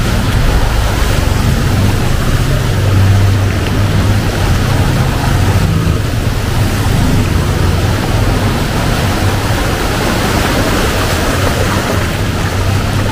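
Heavy rain falling steadily, a dense, even rushing noise with a low rumble underneath.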